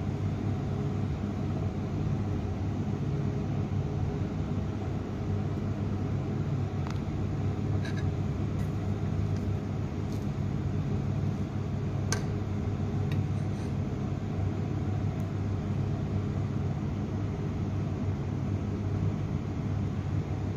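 A metal spoon stirring dry, crumbly grain in an aluminium pot, with a few light clinks of the spoon against the pot, the sharpest about twelve seconds in. Underneath is a steady low rumble.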